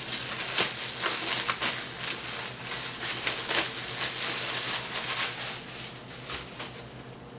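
Clear plastic bag crinkling and rustling as a new football helmet is pulled out of its wrapping, in irregular crackles that thin out near the end.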